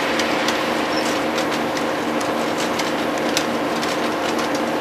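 HO scale model freight train rolling past, its metal wheels clicking irregularly over rail joints above a steady low hum.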